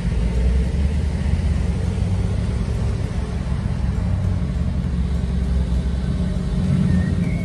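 ABT-tuned Audi RS6-R's 4.0-litre twin-turbo V8 running as the wagon drives off at low speed: a loud, steady, deep exhaust note.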